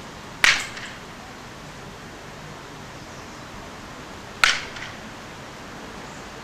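Two sharp clattering knocks about four seconds apart, each trailing off in a short rattle, over a steady hiss.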